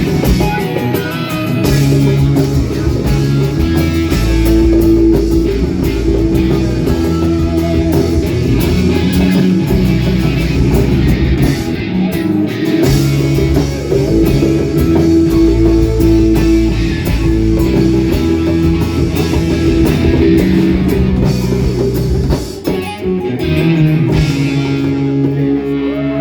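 Rock band playing an instrumental passage live, with electric guitar, bass guitar and drum kit.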